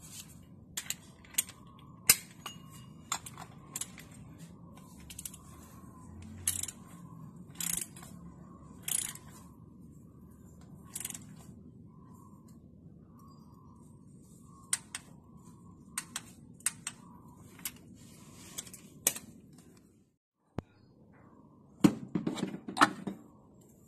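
Irregular metallic clicks and taps from a ratchet wrench and oil-filter cap wrench being worked on a spin-on oil filter. Near the end comes a quick cluster of louder clacks.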